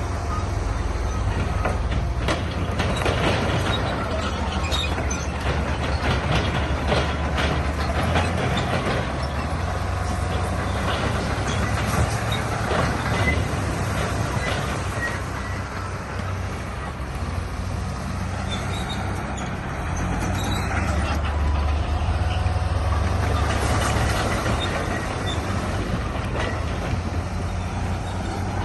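Bulldozer's diesel engine running steadily under load, with its steel tracks clanking and rock scraping and knocking as it is pushed.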